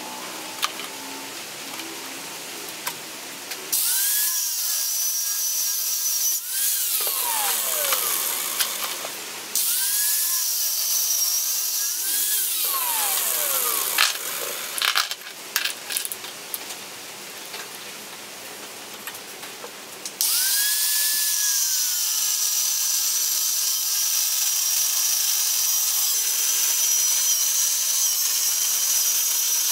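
Angle grinder with an abrasive cut-off disc cutting through steel chain links held in a vise. It runs in two bursts, each spinning up with a rising whine and winding down with a falling one. Near two-thirds of the way through it starts again and cuts steadily to the end.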